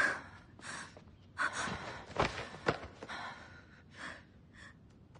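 A woman's breathy gasps and strained breaths, several in a row, without voiced words.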